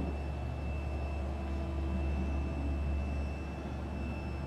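Steady low hum with a faint, constant high whine: background room tone with no distinct event.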